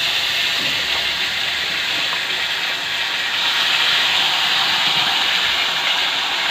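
Loud, steady sizzling of hot cooking oil in a steel kadai as a wet ingredient fries in it.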